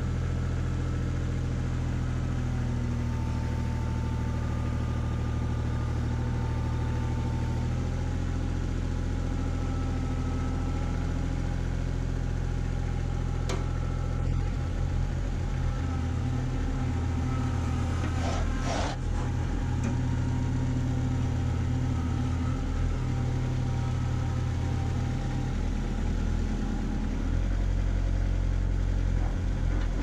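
Kubota B2601 compact tractor's diesel engine running while its loader handles a log, its note shifting as it revs and settles. A sharp metal knock comes a little before the halfway point, and a couple more follow a few seconds later.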